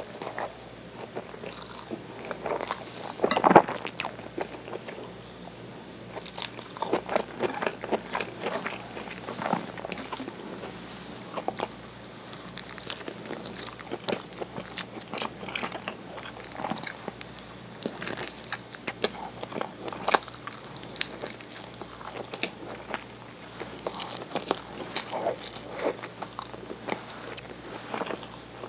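Close-miked eating sounds: chewing a mouthful of okonomiyaki, then biting and chewing a nori-wrapped rice ball (onigiri), with many short, irregular mouth clicks.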